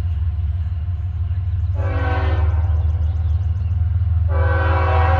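Approaching diesel freight locomotive's air horn sounding two blasts, a short one and then a longer one, over a steady low rumble.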